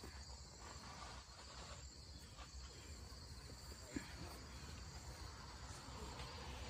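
Faint outdoor ambience: a steady high-pitched insect chorus over a low rumble, with a single soft tick about four seconds in.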